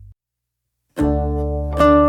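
Background instrumental music with plucked-string notes. A low held note cuts off at the start, and after almost a second of silence the music starts again about a second in.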